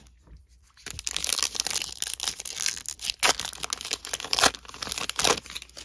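Trading card pack wrapper being torn open and crinkled by hand. It starts about a second in as a run of dense crackling and crinkling with sharp tearing snaps.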